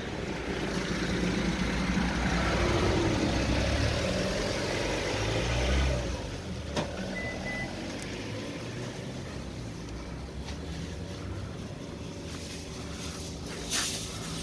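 A road vehicle passing in the street, swelling and then fading away with a falling pitch by about six seconds in. After it, a faint steady background with a short high beep near the middle and a brief clatter near the end.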